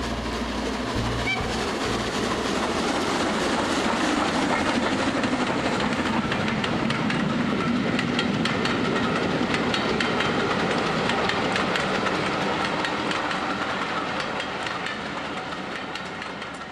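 A train running on rails, with a rapid clickety-clack of wheels over rail joints over a steady rushing noise, fading out near the end.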